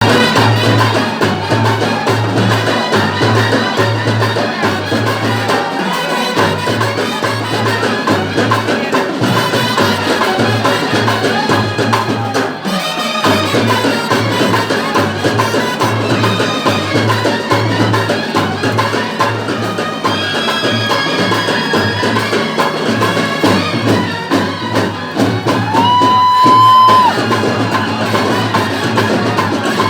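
Loud percussion-driven festival music: a steady bass-drum beat of roughly two strokes a second under dense drumming. A held high note sounds for about a second near the end.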